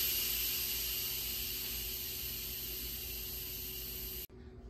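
Instant Pot pressure cooker venting steam through its pressure release valve on quick release: a steady, loud hiss that slowly fades as the remaining pressure drops, then cuts off suddenly near the end.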